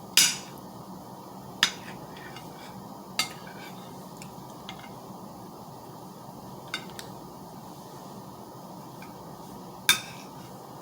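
Eating utensils clinking against dishware: about five sharp, separate clinks with a short ring, a couple of seconds apart, over a steady background hiss.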